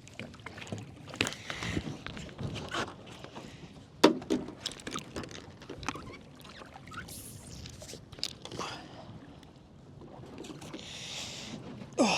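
Scattered knocks and clatter on a small boat on the water, with some water noise; the loudest knock comes about four seconds in.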